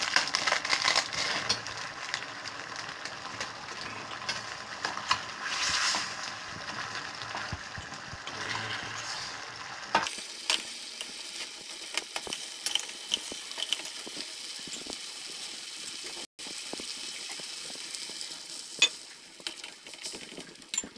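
A steel pot of Maggi noodles in spiced tomato-and-potato broth simmering, while a steel spoon scrapes and clinks against the pot as the noodles are stirred. About halfway through, the simmering noise drops away suddenly, leaving scattered spoon clinks.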